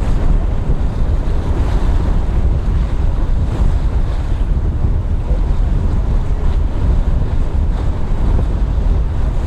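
Wind buffeting the microphone over the rush of water, a steady loud low rumble with no pitch.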